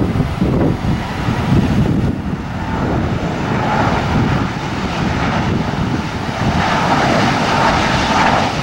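Airbus A330 twin jet engines on low approach with gear down. Their whine builds from about three and a half seconds in and grows louder toward the end, over low, gusty wind rumble on the microphone.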